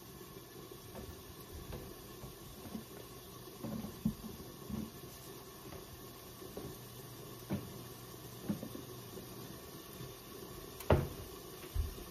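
Tilapia fillets frying in salted butter in a lidded skillet: a faint steady sizzle with scattered pops and clicks, the sharpest one near the end.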